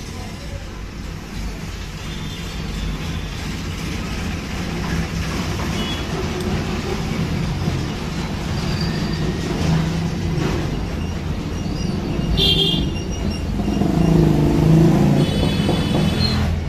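Road traffic passing, with vehicle horns tooting briefly several times.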